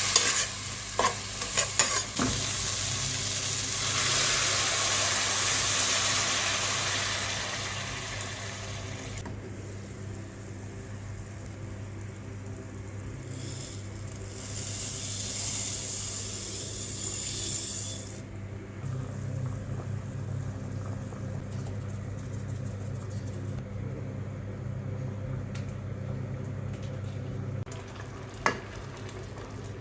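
Food sizzling in hot oil in a pan as it is sautéed and stirred, with a few knocks of the utensil against the pan near the start and once more near the end. The sizzle swells twice, then settles to a quieter, steady hiss.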